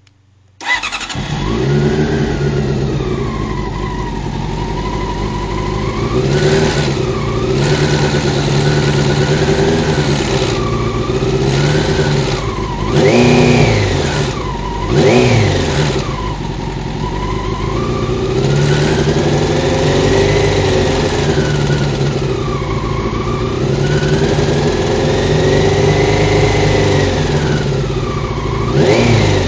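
Honda CBR600 F1 inline-four engine running, its speed rising and falling slowly, with two quick throttle blips near the middle. It carries the strange noise that the owner traced to a faulty cam chain tensioner.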